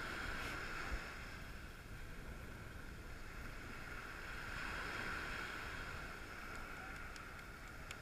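Steady background of wind and gentle surf at the water's edge, with a few faint small clicks near the end.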